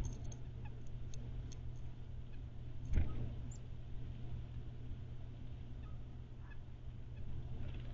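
Small birds at a feeder: a few short, high chirps in the first two seconds over a steady low rumble, with a single thump about three seconds in.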